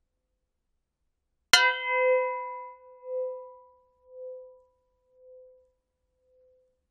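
A single strike on a resonant metal gong, about one and a half seconds in, ringing with several bright overtones that fade quickly while a lower hum lingers, pulsing slowly in a wobble as it dies away over about four seconds.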